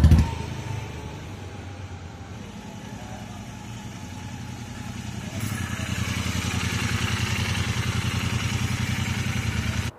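Motorcycle engine running with an even low beat, quieter at first and louder from about halfway through as the bike draws close.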